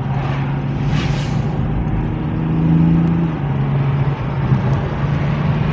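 Toyota Supra's 3.0-litre turbocharged inline-six engine and exhaust heard from inside the cabin while driving, its note building to its loudest about three seconds in, then dropping back as it eases off.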